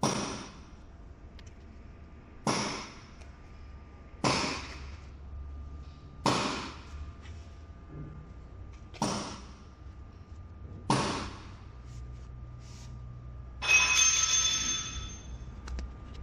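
Napkin paper machine running with a steady hum, giving six sharp metallic clanks every two seconds or so, each ringing briefly. A longer ringing metallic clatter of several tones follows near the end.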